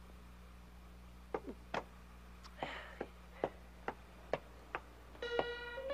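Quiet footsteps creeping across a hard floor: light, sharp clicks about two a second. Plucked-string music comes in near the end.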